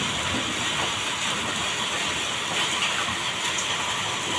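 Hail falling heavily: a steady, dense hiss of noise with no break.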